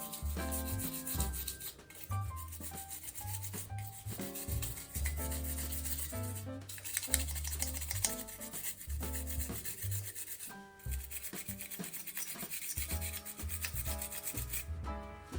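Repeated scratchy rubbing as an Xbox 360 controller's circuit board is scrubbed clean with isopropyl alcohol, over background music with a low bass line that changes notes.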